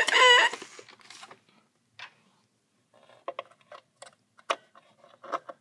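A voice trails off in the first half second, then scattered small clicks and taps: a screwdriver turning the speed knob in the base of a plastic animatronic figure and handling the figure.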